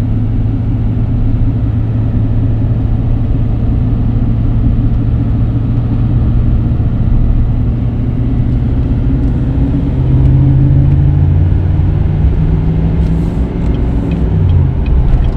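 Chevrolet Silverado Duramax diesel pickup heard from inside the cab at highway speed while flat-towing a Jeep: a steady engine drone with road rumble. About ten seconds in the engine note climbs under load, then drops near the end.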